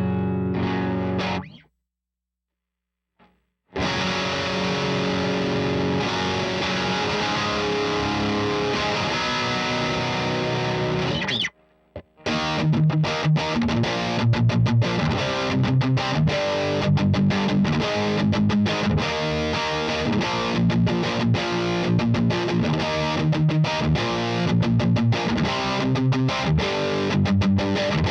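Overdriven electric guitar riffs from a Gibson Les Paul Tribute with P90 pickups, played through a Slamurai transparent overdrive pedal into an 18-watt Satellite Neutron tube amp. The playing stops for about two seconds near the start, rings on in sustained chords, then from about twelve seconds in turns to choppy riffing with many short stops.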